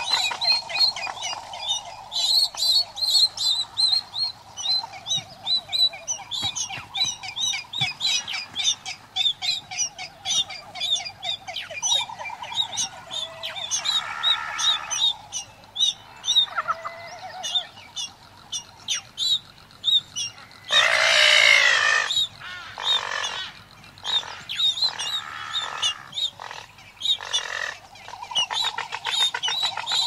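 Great frigatebird colony at close range: males' low warbling display calls and harsher calls, over a steady run of rapid high cheeps from a Galapagos mockingbird. About two-thirds of the way through comes a loud harsh call lasting over a second, followed by several shorter ones.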